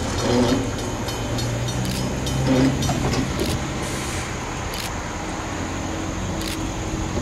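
Diesel engine of a Montreal Locomotive Works RS18u locomotive running steadily with its passenger train, with a few scattered clicks.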